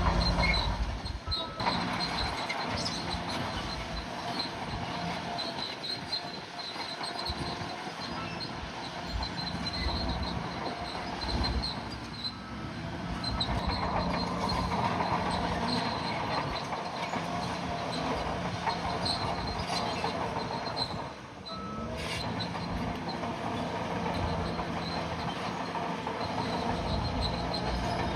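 Bulldozer at work: its diesel engine running steadily, with the steel tracks clanking and squealing.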